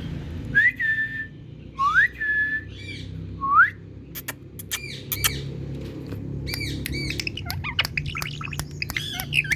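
Indian ringneck parrot whistling and squawking: three rising whistles in the first four seconds, the first two levelling off into a short held note, then a run of clicks and sharp chirping squawks.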